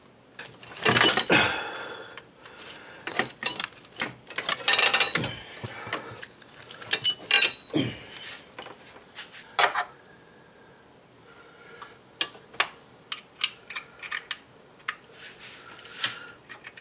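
Metal hand tools clinking and clattering against metal engine parts, loudest about a second in and again around the fifth second, then a string of separate sharp clicks, about two a second, near the end.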